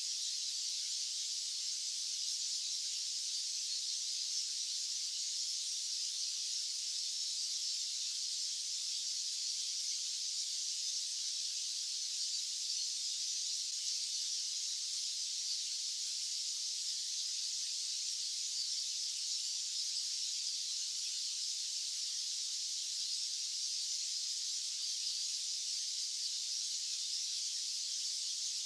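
Steady, unbroken white-noise hiss, high-pitched and thin, with no low rumble beneath it.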